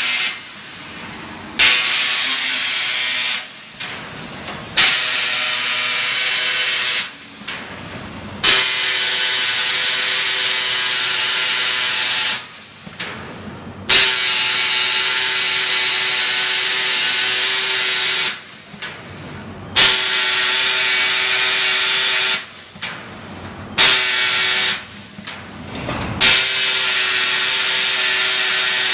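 CNC plasma torch arc firing over a steel sheet in a series of about seven bursts. Each starts with a sharp pop, holds a loud hiss with a steady whine for one to four seconds, then cuts off. A quieter machine hum runs between the bursts.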